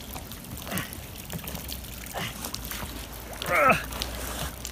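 Water trickling and dripping off a rusted iron safe door as it is hauled up out of the river by hand, with a brief vocal sound about three and a half seconds in.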